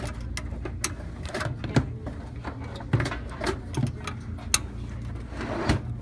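Irregular clicks and knocks of hard-drive carriers and the sheet-metal drive cage of a desktop computer being handled as the drives are worked loose, over a low steady hum.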